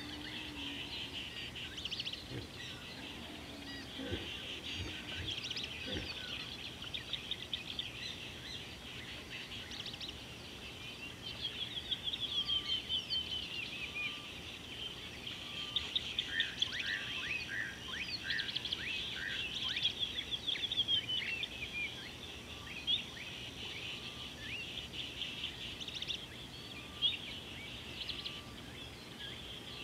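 Many birds chirping and calling at once in a busy chorus of short, high, quick notes, busiest in the middle, with a faint short lower note repeating at even spacing through the second half.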